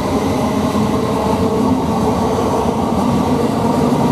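Thameslink Class 700 electric multiple unit pulling out of the station, its steady running noise carrying several steady tones from the traction equipment.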